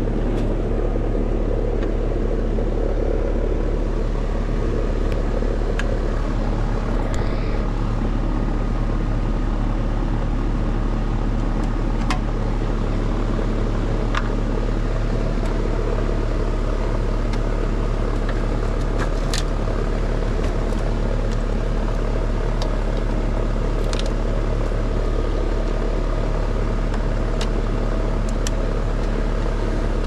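Outdoor air-conditioning condensing unit running: a steady hum of compressor and fan with a strong low drone. Scattered light clicks of hand tools and gauge fittings against the unit.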